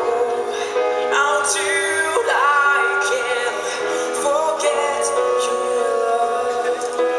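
A rock ballad played live by a band, with a voice singing a held, wavering melody over sustained accompaniment.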